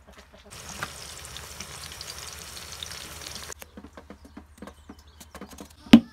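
Steady rain hiss for about three seconds, stopping abruptly. Then faint clicks from a knife peeling an eggplant, and near the end one loud knock as a metal pestle strikes a walnut to crack it.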